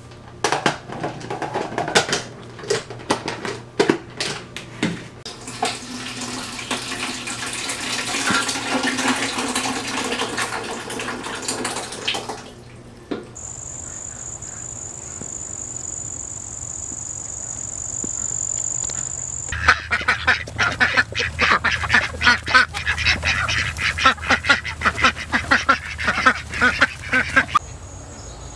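Some clatter, then a countertop blender runs for about seven seconds puréeing roasted tomatoes and stops. After that comes a steady high insect trill, and from about twenty seconds in a long run of rapid duck quacking over it.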